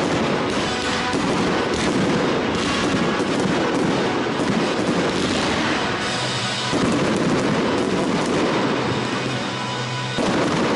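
Aerial fireworks firing and bursting in quick succession: a dense, continuous crackle of sharp reports and bangs with no pauses.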